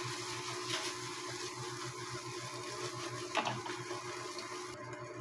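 Steady hum of an induction cooktop, with a few soft scrapes of a wooden spatula stirring eggplant and egg in a nonstick wok.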